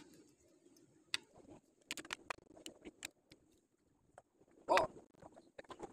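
Scattered small clicks and ticks from a spinning rod and reel being handled while the line is rigged, with one louder handling noise about three-quarters through.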